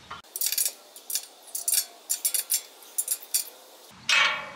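17 mm ratcheting wrench clicking in short runs of quick metal clicks, about one run every half second, as it tightens the nuts on a hitch tightener's U-bolt. A brief louder sound near the end.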